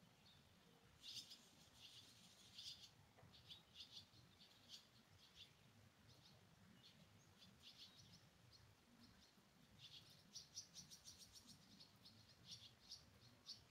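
Faint, quick bird chirps in short clusters, thickest near the end, over the soft steady hiss of a rain shower.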